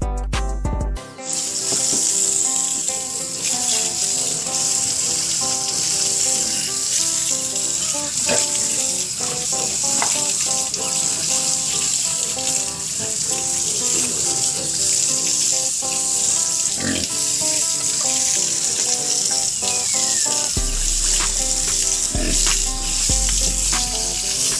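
Background music with a steady hiss starting about a second in and continuing throughout.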